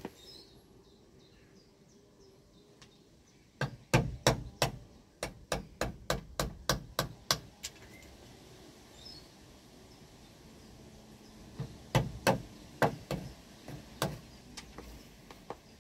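Wooden mallet tapping the back of a knife blade set against the end of a wooden staff. A quick run of about a dozen sharp knocks, three or four a second, then a pause and a shorter run of about six.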